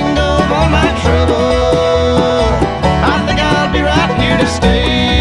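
Background country-style music with banjo and guitar over a steady beat.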